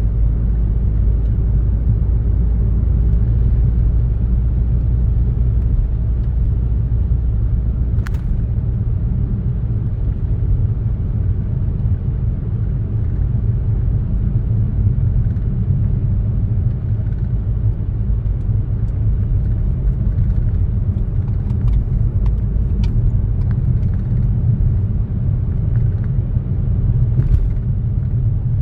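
A car driving at a steady pace, its road and engine noise a continuous low rumble, with a few faint clicks and ticks now and then.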